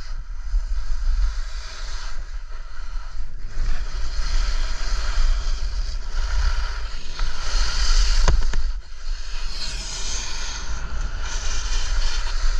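Skis hissing and scraping over the snow on a steep run, swelling and fading in surges as the turns come, over wind buffeting the microphone. One sharp knock about eight seconds in.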